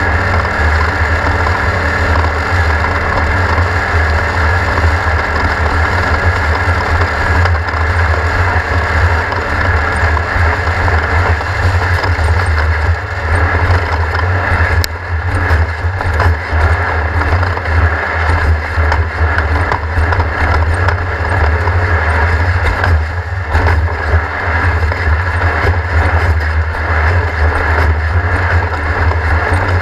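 Off-road race car's engine running steadily, with irregular knocks and rattles from about halfway through.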